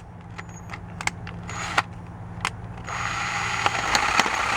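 Electric drill boring into a broken steel bolt with a 5/16-inch bit that is well used and not very sharp, with scattered clicks. About three seconds in, the bit bites and the grinding of the cut gets louder.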